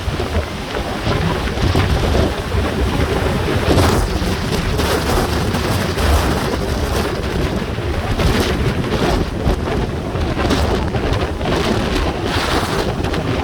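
Typhoon-strength wind buffeting the microphone over heavy surf breaking, a loud, continuous rumble that swells and eases in gusts.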